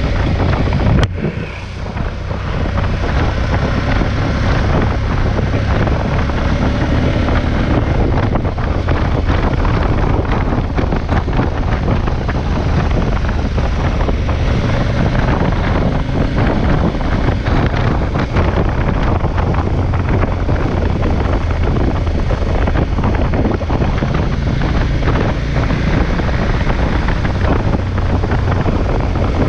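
KTM 1190 Adventure's V-twin engine running at road speed, with heavy wind noise on the microphone. The level dips briefly about a second in, then holds steady.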